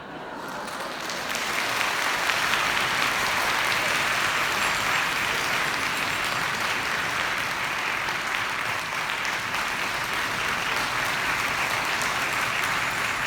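Concert hall audience applauding, swelling up over the first second or two and then holding steady.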